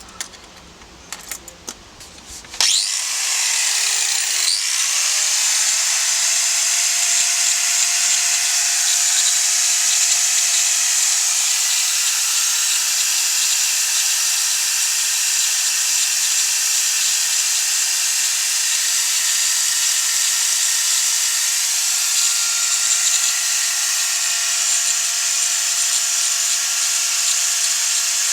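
Handheld electric grinder switched on about two and a half seconds in; its whine rises in pitch as it spins up, then it runs steadily at speed.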